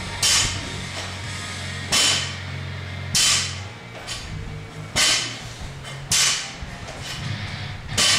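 Barbell power snatch reps: a short, sharp burst of noise with each rep, about every one and a half seconds, over background music.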